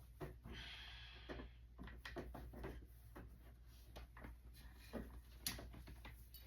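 Handling noises: scattered light clicks and taps at an irregular pace, with a short rustle about half a second in and the sharpest click about five and a half seconds in.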